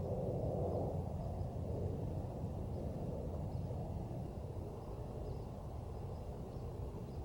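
Wind blowing, a steady low rumble buffeting the microphone, with faint short high ticks now and then.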